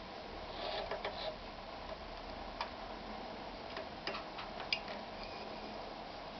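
Victoria 739 sewing machine mechanism giving irregular clicks and ticks, a cluster about a second in and single sharper ones later, over a steady hum.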